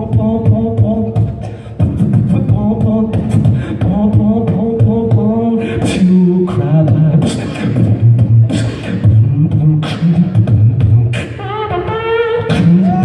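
Solo beatboxing into a handheld microphone, amplified through a PA: a rapid stream of sharp vocal drum hits layered over sustained sung bass and melody tones.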